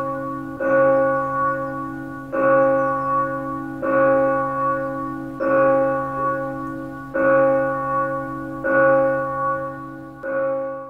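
Intro music: the same piano-like keyboard chord struck about every one and a half seconds, each strike ringing out and fading before the next.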